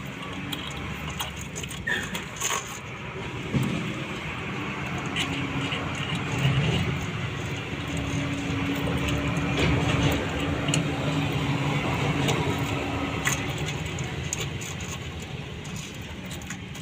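Light metallic clinks and rattles as a motorcycle timing chain and hand tools are handled, over a steady background hum of a vehicle engine running.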